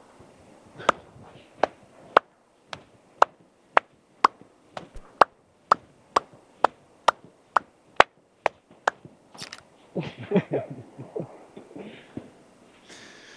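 Sharp hand claps and slaps in a steady rhythm of about two a second, speeding up a little and stopping after about nine seconds, followed by brief voices.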